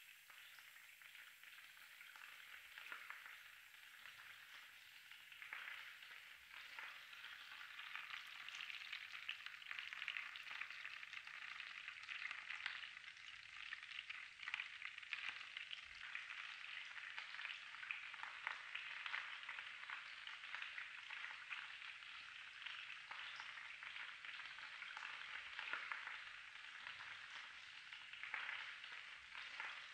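Goose roasting in a covered glass roasting dish: its fat and juices sizzle faintly with a steady hiss and many small crackles, growing a little louder over the first several seconds.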